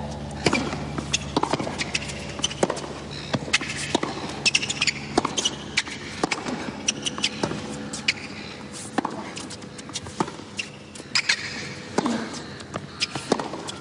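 Tennis rally on a hard court: a serve, then the ball struck by racquets and bouncing back and forth, many sharp single knocks spaced well under a second to a second or so apart.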